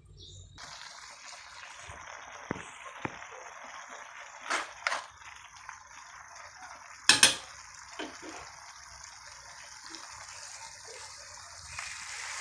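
Kitchen cooking sounds: a steady watery hiss that starts suddenly just after the start, with a few scattered knocks and clatters, the loudest a brief double clatter about seven seconds in.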